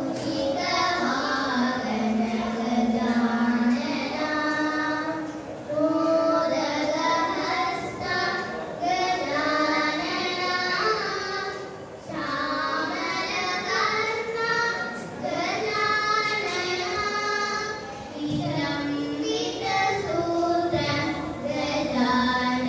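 Two young girls singing a Carnatic classical vocal piece together, their voices sliding and bending through ornamented notes in long phrases.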